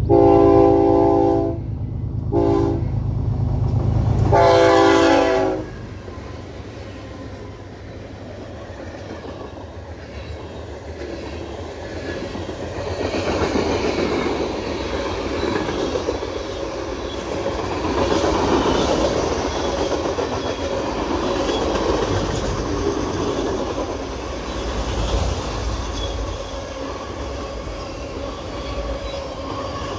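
Diesel freight locomotive sounding its horn long, short, long while passing close by, its engine loud underneath. The engine sound drops off after about five seconds, and the freight cars then roll past with a steady rumble that grows louder about halfway through.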